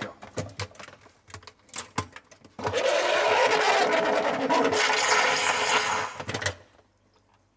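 Pur Steam steamer jetting steam through an angled nozzle into a refrigerator's iced-up defrost drain. A few clicks and knocks come first, then about two and a half seconds in a loud hiss starts suddenly and runs about four seconds before dying away. The drain clears almost at once, a sign that it was only iced over and not clogged.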